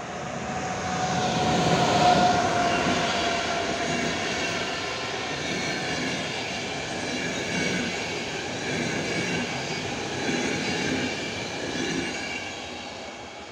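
A locomotive-hauled PKP Intercity passenger train passing close by at speed. The sound rises to a peak about two seconds in, with a brief steady tone, and then the coaches' wheels rumble and beat rhythmically over the rails. It fades near the end as the train draws away.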